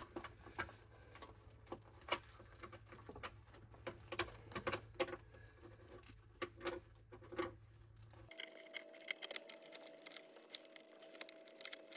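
Faint, irregular clicks and scraping of a data cable being pushed up through the plastic center console of a Tesla Model 3.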